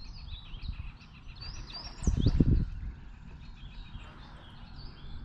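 Songbirds singing, a run of short repeated chirps, over a low rumble of wind or handling noise on the microphone that swells into a louder burst about two seconds in.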